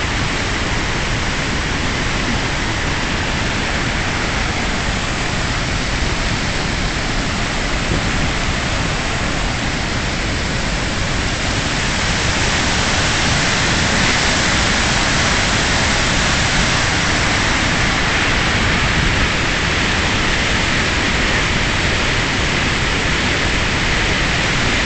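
Waterfall in flood after a hurricane, the swollen water pouring over with a loud, steady rush that grows a little louder about halfway through.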